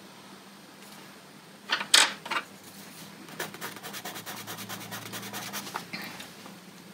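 Colored pencil scribbling a swatch on sketchbook paper: a quick run of short scratchy back-and-forth strokes, preceded about two seconds in by a few sharp taps.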